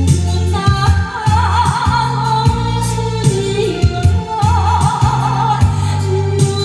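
A woman singing a Korean trot ballad with a wide vibrato over a backing track of bass and regular percussion; her voice comes in about half a second in.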